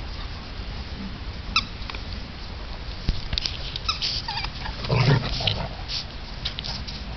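Two dogs, a St. Bernard and a smaller hound, play-fighting: short high-pitched yips and whines, then a louder, deeper vocal burst about five seconds in.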